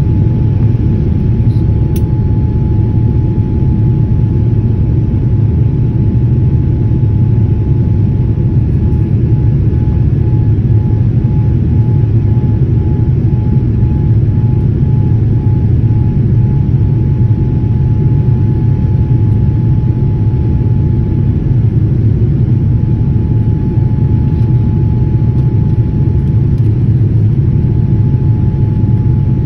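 Jet airliner cabin noise during the climb after takeoff: a steady, loud low roar of the engines and airflow heard from inside the cabin, with a thin steady whine running through it.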